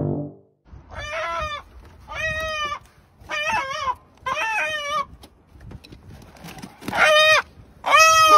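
Chicken squawking, six harsh calls about a second apart, the last two louder.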